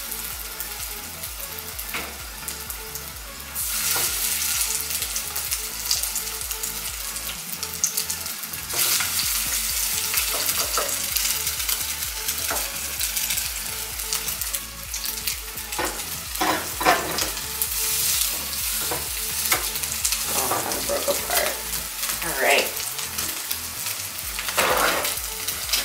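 Salmon croquettes frying in olive oil in a nonstick pan, a steady sizzle. It grows louder about four seconds in and again about nine seconds in, as more patties go into the hot oil.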